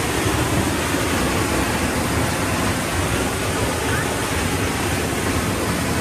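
Giessbach Falls: a loud, steady rush of falling water.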